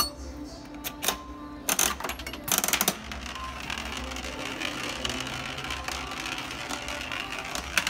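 Coin-operated prize machine clacking several times, then playing an electronic jingle.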